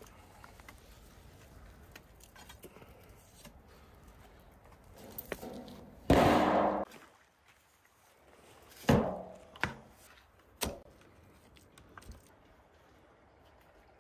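A shovel scraping through soil in a wheelbarrow for about a second. Then three sharp thuds as shovelfuls of earth land on a pit oven's lid to seal it.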